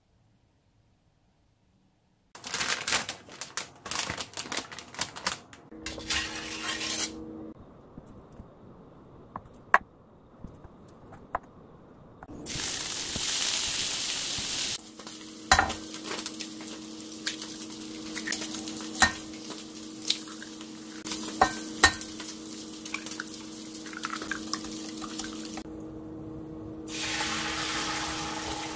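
Slices of Spam hitting a hot oiled tamagoyaki pan with a loud sizzle about halfway through, then frying with a steady sizzle. Clinks of utensils and dishes come throughout, over the low electrical hum of the induction hob. Near the end beaten egg poured into the hot pan sizzles up again.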